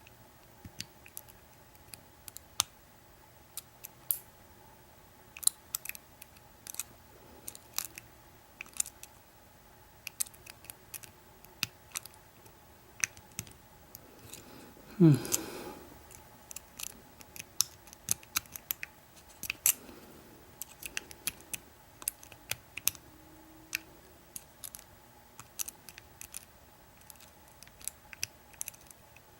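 Lock pick and tension wrench working the pin stack of an American 1100 padlock: scattered small metal clicks and ticks as pins are lifted and set. About halfway through comes one brief, louder sound that rises in pitch.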